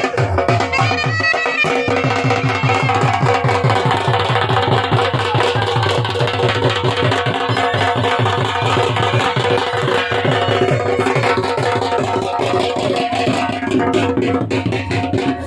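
Traditional dhol and baja music: a dhol drum beating a fast, steady rhythm under a reedy wind-instrument melody over a held drone tone.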